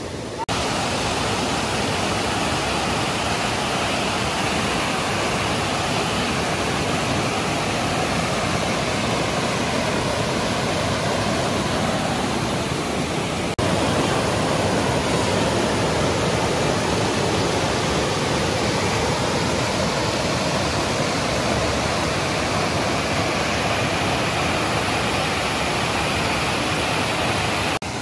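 Waterfall: a steady, loud rush of falling water. A brief break comes a little past halfway, after which the rush is slightly louder.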